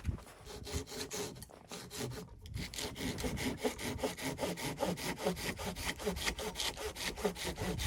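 Hand saw cutting through wood in quick, even back-and-forth strokes, about five a second, settling into a steadier rhythm a couple of seconds in.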